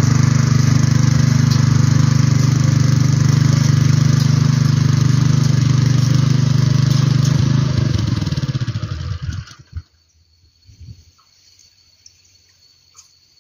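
Toyama 212cc mini tiller's single-cylinder four-stroke engine running steadily, then slowing and winding down to a stop about eight to nine seconds in.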